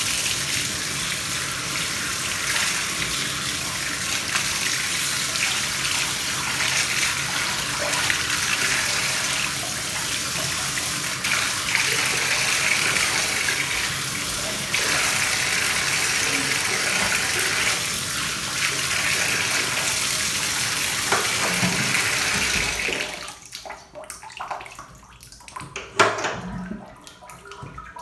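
A bathtub faucet runs steadily onto a small dog being rinsed in the tub. The water shuts off about three-quarters of the way through, leaving quieter splashing and one brief sharp sound a few seconds later.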